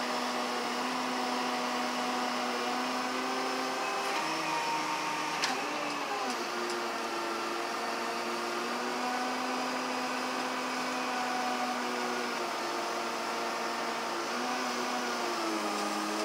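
A machine running steadily: a droning hum whose pitch drifts a little up and down, with one faint click about five seconds in.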